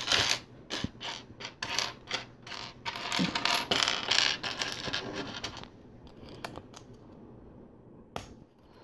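Small plastic LEGO pieces clicking and clattering as they are handled and set down: a quick run of clicks for the first five or six seconds, then only a few scattered ones.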